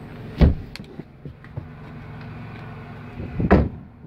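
A thump about half a second in, then a car door slamming shut near the end, over a steady low hum.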